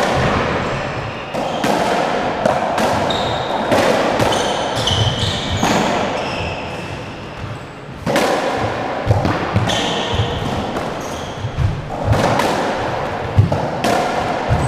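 Squash rally: the ball smacking off rackets, the walls and the floor at irregular intervals, with short high squeaks of shoes on the wooden court floor between the hits. The hits ease off briefly just past the middle, then pick up again.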